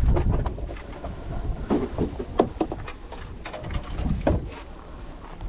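Wind rumbling on the microphone, with scattered sharp clicks and knocks of handling as the rod and camera are moved.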